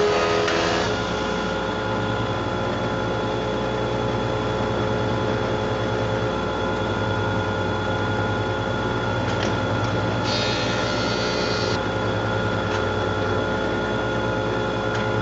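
Thickness planer and dust collector running steadily with a constant hum. The planer's cut through a board trails off about a second in. A short, brighter whirring burst comes about ten seconds in.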